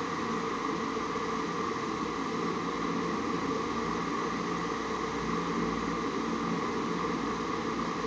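Steady background hum and hiss of room noise, even throughout, of the kind a running fan or air conditioner makes.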